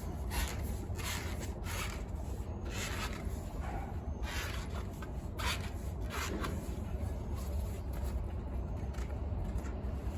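Hands squeezing and working a skinny folding road-bike tire onto its rim: irregular rubbing and scraping of rubber against the rim, with a steady low hum underneath.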